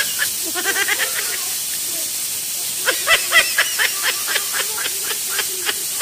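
Stovetop pressure cooker venting steam in a steady hiss through its whistle valve, with children's squeals and laughter over it.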